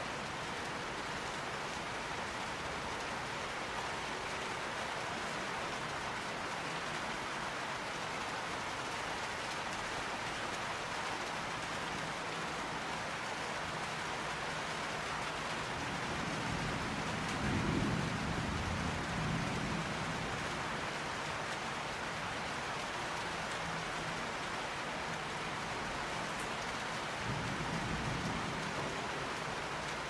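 Steady rain falling, with two low rolls of thunder: a longer one a little past halfway through and a shorter one near the end.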